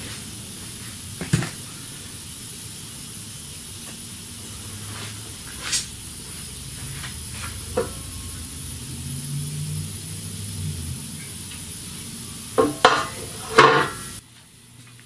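Metal clanks and knocks as a steel transmission oil pan is handled over a metal oil drain pan: a few single knocks, then a loud clatter of several hits near the end. A steady hiss sounds under it and cuts off suddenly near the end.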